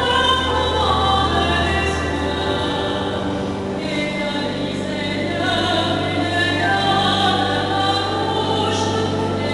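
A choir singing sacred music, voices in several parts moving slowly, over long held low notes.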